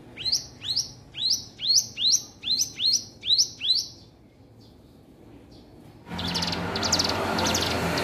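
Ciblek gunung (a prinia) singing a quick series of about ten downslurred whistled notes, roughly two and a half a second. After a short pause, a noisier passage of rapid trilled bursts starts suddenly about six seconds in.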